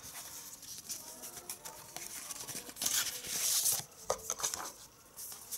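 Printed card and paper inserts being handled: light rustling and small clicks, with a louder sliding rustle about three seconds in.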